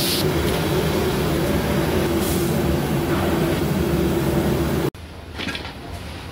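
Large gas burner under a cooking pot burning steadily, a loud rush with a low rumble. It cuts off abruptly about five seconds in, leaving a quieter background with a few light clatters.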